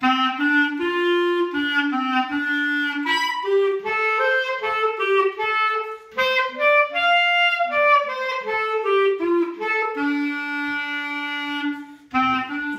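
A clarinet played solo: a simple melody in separate notes, with a brief break about six seconds in, closing on a long held note that stops shortly before the end.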